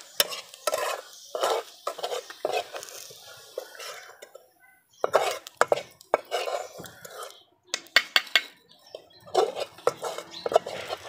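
A metal utensil scraping and clinking against a kadai (Indian wok) as fried onions are lifted out of the hot oil. Irregular scrapes and knocks, with a short lull about four seconds in and a run of sharp clicks around eight seconds in.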